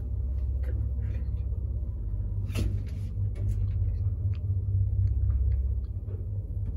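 Old ZUD passenger elevator car travelling in its shaft: a steady low rumble from the car and its drive, with a few faint clicks and one sharper knock about two and a half seconds in.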